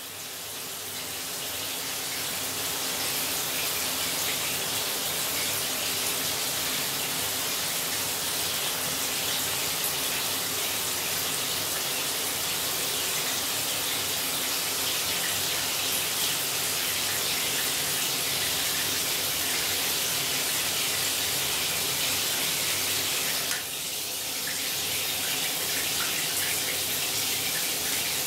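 Water spraying steadily from a six-mode chrome shower head, building up over the first few seconds. About 23 seconds in there is a brief dip, after which the spray sounds slightly different.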